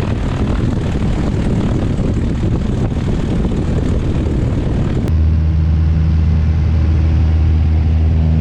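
Piper Cherokee 160's four-cylinder engine and propeller running, heard loud from inside the cabin. About five seconds in the sound switches abruptly to a steadier, deeper drone with a clear pitched hum.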